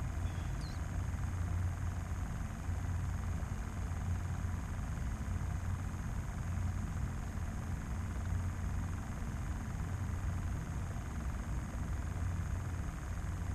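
A steady low rumble with a faint high-pitched whine above it, unchanging throughout, with no distinct events.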